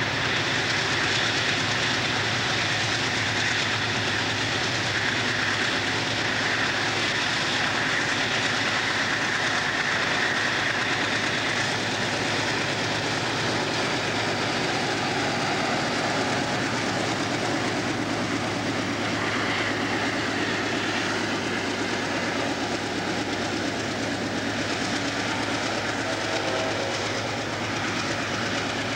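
Freight train led by CSX diesel locomotives passing at close range, engines running and wheels rolling on the rails, with covered hopper cars following. The sound is loud and steady throughout.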